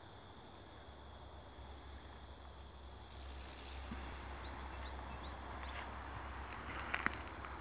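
Crickets trilling in steady high-pitched pulsing chirps that fade out about six seconds in. Near the end come a few sharp crackles of footsteps through grass.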